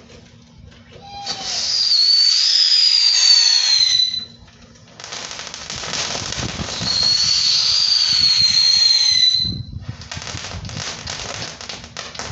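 Tank-style ground firework going off: two long shrill whistles over hissing sparks, each lasting a few seconds with a slight drop in pitch, then a run of crackles near the end.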